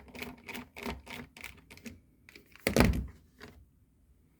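A run of quick sharp clicks, about three or four a second, from screws being driven into a dishwasher's control-board housing, then a single loud thunk a little before three seconds in.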